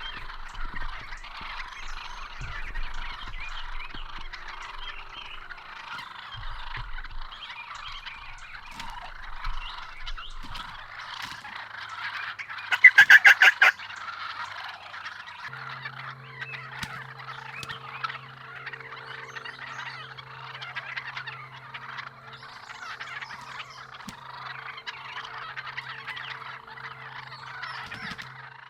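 Osceola wild turkey gobbling once, loudly, about halfway through, over a dense steady chorus of calls. A low steady hum joins soon after the gobble.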